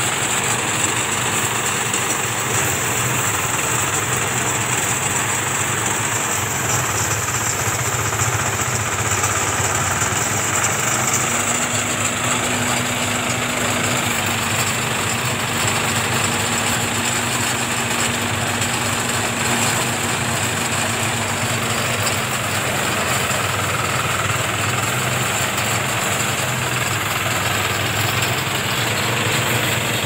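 Small engine-driven rice thresher running steadily while rice stalks are fed through it, a continuous even machine drone with no breaks.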